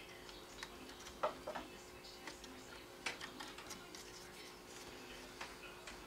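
Scattered light clicks and taps from small parts being handled by hand inside an opened laptop chassis, over a faint steady hum.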